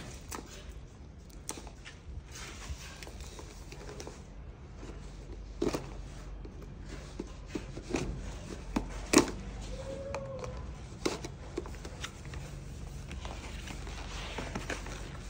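Cardboard phone box being cut open at its seal and its flaps folded back: scattered small clicks, scrapes and paper rustles, the sharpest snap about nine seconds in, over a low steady background hum.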